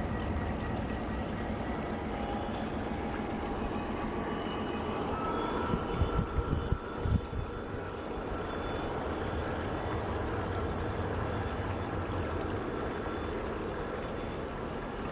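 O scale three-rail model freight train rolling along its track, its wheels clattering, with a quick run of sharp clacks about six seconds in. The steady rush of a garden waterfall runs underneath.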